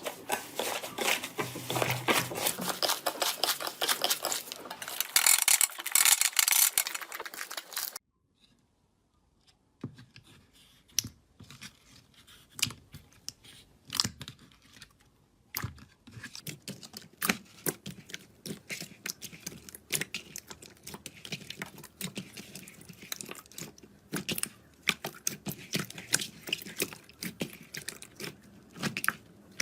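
Slime being handled by hand, giving a dense run of crackling clicks. About eight seconds in it stops for a couple of seconds, then comes back as sparser clicks and pops.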